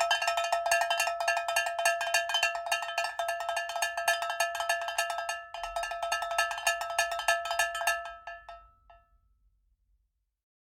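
A small metal bell struck or shaken rapidly, many strokes a second, each ringing the same fixed pitches. It falters briefly about five and a half seconds in, then thins to a few last strokes and stops.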